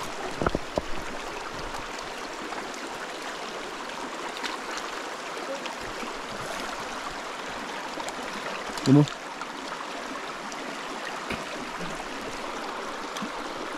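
Mountain creek rushing over rocks: a steady, even rush of water. A couple of short low thumps come about half a second in.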